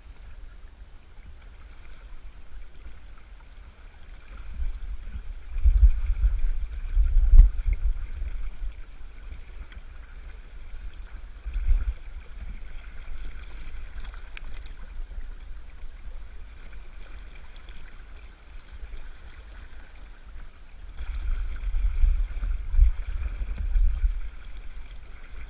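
Shallow mountain river current rushing and gurgling around a wading angler's legs, with deep buffeting on the microphone about five seconds in and again near the end.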